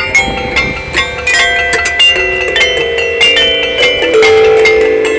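Large van-mounted metallophone's metal bars struck with mallets in quick succession, the bright ringing notes overlapping and sustaining. A lower note rings on strongly from about four seconds in.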